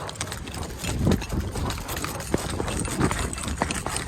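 Footsteps of a player running, with gear rattling and rustling and the body-worn microphone jostling: a quick, irregular run of thumps and clicks over a low rumble.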